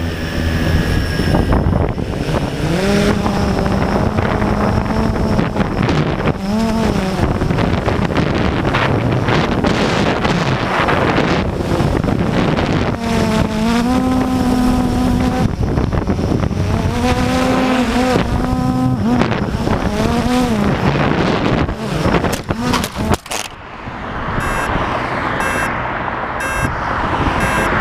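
Wind buffeting the microphone over traffic on a busy street, with vehicle engines rising and falling in pitch as they pass. A few seconds before the end a dip is followed by quick, regular electronic beeping.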